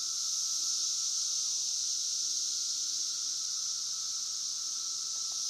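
Chorus of cicadas: a steady, continuous high-pitched droning buzz with no breaks.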